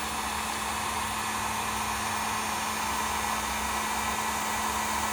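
Electric heat gun blowing steadily with a constant low hum, heating heat-shrink tubing on a typewriter platen to shrink it tight and harden the new cover.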